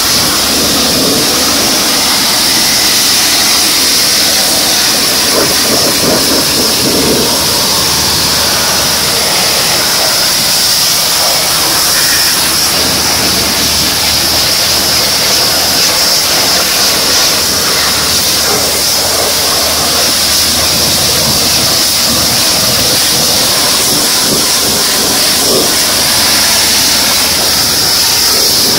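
Kärcher pressure washer running, a steady loud hiss of its high-pressure water jet spraying over the surfaces of a car's engine bay, with the machine's pump hum low underneath.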